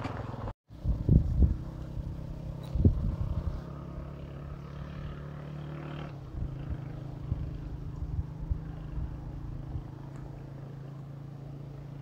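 Motorcycle engine running steadily on a gravel road, with a few loud thumps in the first three seconds. About six seconds in its note drops, and it runs on at a lower steady hum.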